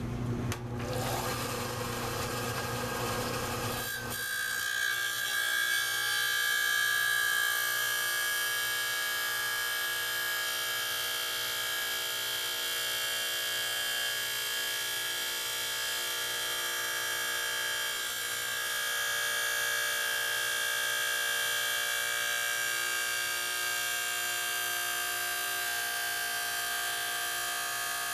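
An electric lapidary grinding wheel runs with a steady whine while a wet slab of labradorite is pressed against its edge, grinding the stone down toward a marked cabochon outline. The sound is rougher and noisier for the first few seconds, then settles into an even whine with a hiss over it.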